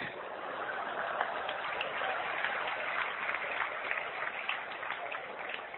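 Audience applauding, starting suddenly and dying down near the end.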